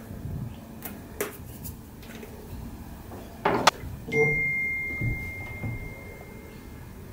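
Light clicks and knocks of glue bottles being handled and set down on a wooden workbench, with one louder knock about three and a half seconds in. A faint steady high tone starts just after it and runs for about three seconds.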